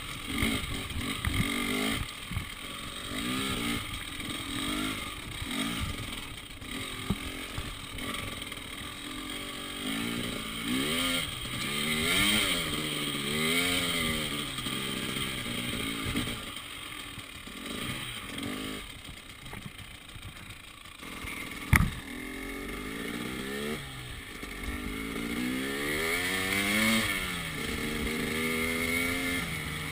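KTM 300 XC-W two-stroke single-cylinder dirt bike engine revving up and falling back again and again as the throttle is worked, with the bike clattering over rough ground. One sharp knock about two-thirds of the way through is the loudest sound.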